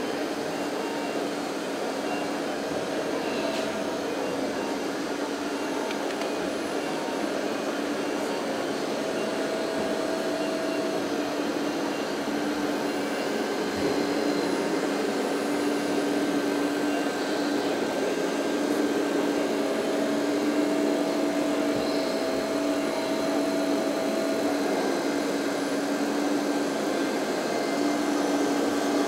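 Hydraulic pump of a radio-controlled Liebherr 924 wheeled excavator running, a steady whining hum that comes and goes in stretches as the grapple arm moves, over a constant noisy hall background.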